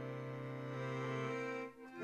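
Instrumental music: long held chords that drop out briefly near the end before the next chord comes in.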